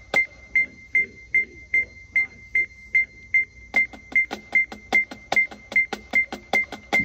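Electronic metronome beeping a steady high tone about two and a half times a second, setting the marching band's tempo. About three and a half seconds in, sharp percussive clicks join, falling on and between the beeps.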